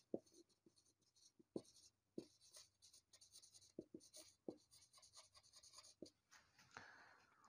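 Faint scratching of a marker writing on a whiteboard, with a handful of soft clicks scattered through as it touches and lifts off the board.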